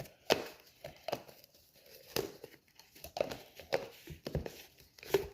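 Irregular plastic clicks and knocks from handling a shaker bottle and working its lid on.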